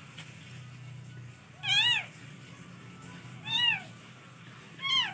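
Cat mewing: three short, high-pitched mews about one and a half seconds apart, each rising then falling in pitch.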